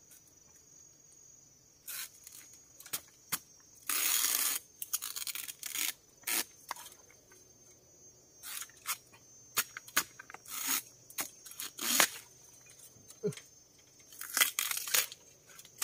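Scattered snaps, cracks and rustles of bamboo stalks and dry undergrowth being handled, with a longer tearing rustle about four seconds in.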